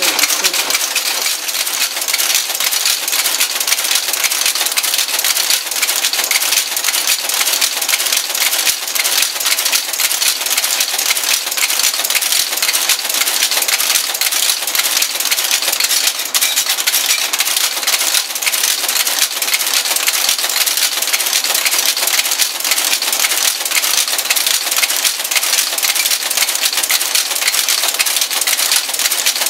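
Monotype composition caster running and casting type: a loud, continuous, dense mechanical clatter of many fine clicks.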